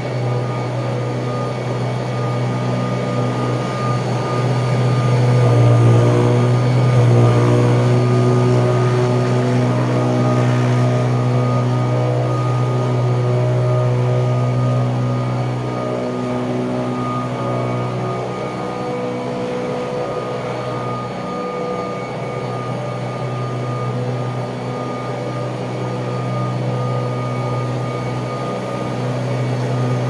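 1979 Kirby Tradition upright vacuum cleaner running on carpet: a steady motor-and-fan drone with several held tones. It grows louder about five seconds in and eases back after several seconds as it is pushed along the runner.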